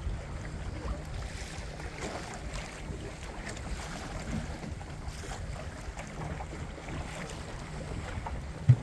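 Water washing and lapping along the hull of a small sailboat under way, with wind buffeting the microphone. A single short, loud thump near the end.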